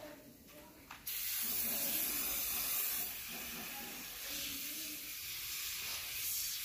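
Aerosol can of foaming engine degreaser spraying in a steady hiss, starting abruptly about a second in.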